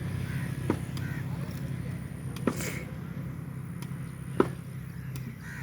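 A steady low mechanical hum, like an engine running, with three sharp knocks roughly two seconds apart.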